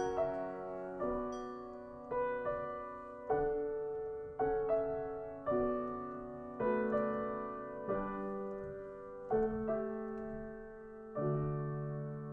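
Solo piano playing a slow piece, one chord struck about once a second and left to ring and fade. The pace eases near the end, where a low bass chord is held.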